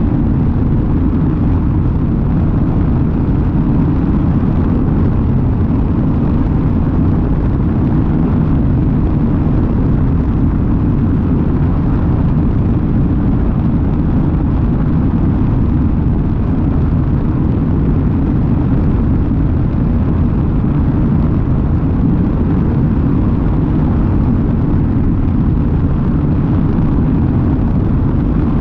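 Light aircraft in flight: the propeller engine's deep, steady drone mixed with rushing air and wind buffeting on the microphone, unchanging throughout.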